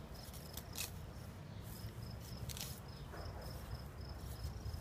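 An insect chirping in a steady train of short high pulses, with a couple of brief sharp swishes of a hand sickle slicing grass stalks.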